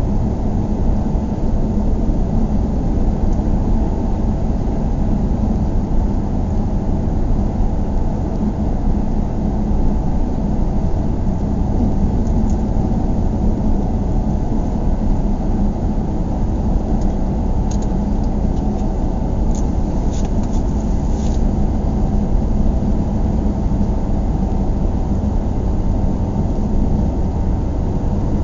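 Steady low rumble of a car driving, heard from inside the cabin: engine and tyre noise, with a few faint clicks about two-thirds of the way through.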